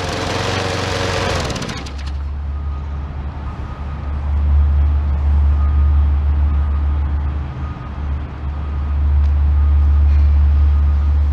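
Gas push mower's small engine running in place, a steady low hum that swells and eases. About two seconds in, a louder hissing noise over it stops abruptly.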